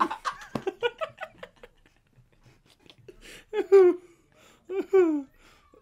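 Two young men laughing. A run of quick laughs comes first, then two longer laughs falling in pitch near the end.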